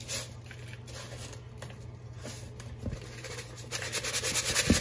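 Hand tossing biscuit dough pieces in brown sugar and cinnamon in a mixing bowl: a soft gritty rubbing and rustling of the sugar. It gets louder and busier near the end as the bowl is shaken, with a single bump just before the end.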